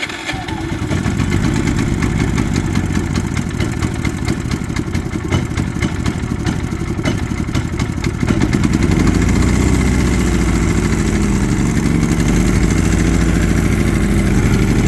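Predator 3500 inverter generator's 212cc single-cylinder engine running steadily just after starting, getting louder about eight seconds in. It is running again after its carbon-clogged spark arrestor was cleaned, which cured its not starting and sputtering.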